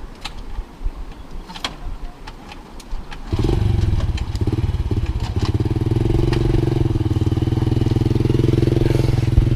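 A few knocks and clicks, then about three seconds in a motorcycle engine starts abruptly and runs steadily at idle.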